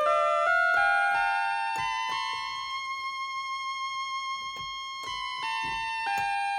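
Instrumental keyboard music: a melody of stepped notes climbs to one long held note in the middle, then steps back down near the end, over light ticking percussion.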